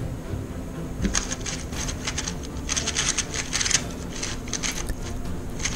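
A 3x3 speedcube being turned fast in a speedsolve: quick runs of plastic clicking and clacking from the turning layers, starting about a second in, with short pauses between runs.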